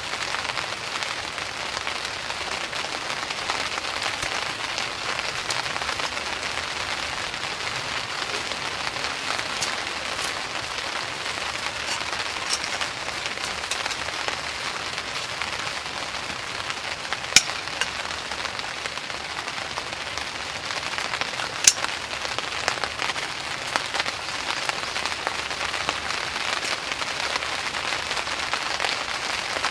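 Steady rain pattering on tent fabric, heard from inside the tent, with a few sharper single drop hits standing out, two of them loudest about midway.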